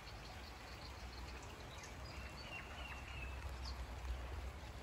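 Faint outdoor ambience: a low steady rumble under an even hiss, with a few faint short high chirps around the middle.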